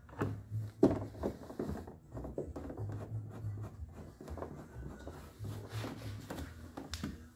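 Hand screwdriver and hands working on a plastic door trim panel: irregular scraping, rubbing and clicks of plastic, with one sharp click about a second in.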